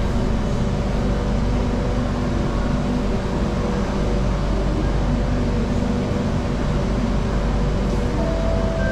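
Singapore MRT train running between underground stations, heard inside the carriage: a steady rumble of wheels and motors. A faint steady tone comes in near the end.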